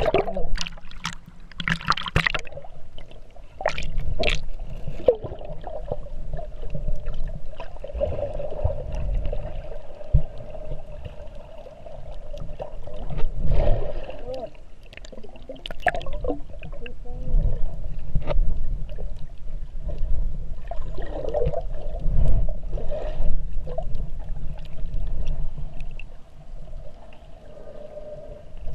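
Underwater sound picked up by an action camera while snorkeling: muffled sloshing and gurgling of water with a low rumble. Scattered sharp clicks and crackles, several close together in the first few seconds.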